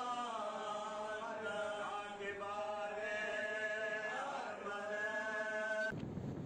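Men's voices chanting a devotional recitation, long held melodic lines that slowly rise and fall. It cuts off abruptly near the end and gives way to a rushing noise like wind on the microphone.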